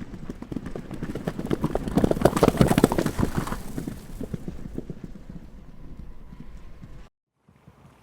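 Horses galloping past: dense hoofbeats grow louder, are loudest about two to three seconds in, then fade away. The sound cuts out abruptly about seven seconds in, and faint hoofbeats start again near the end.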